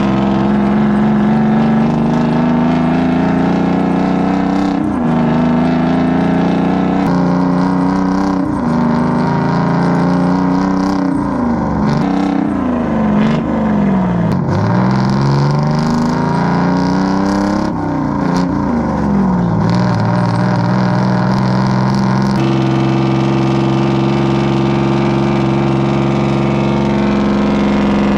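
Cement mixer truck's diesel engine revving up and down several times, its pitch climbing and then dropping sharply, before it settles into a steady fast idle a little after two-thirds of the way through.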